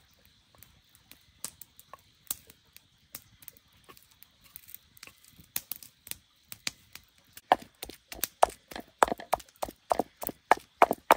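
Sharp knocks, scattered at first, then a quick, even run of louder strikes at about four a second from around seven and a half seconds in, like chopping on wood.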